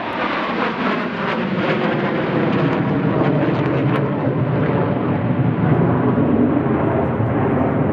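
Aircraft engine noise from a plane flying past: a loud, steady rush whose highest sounds slowly dull.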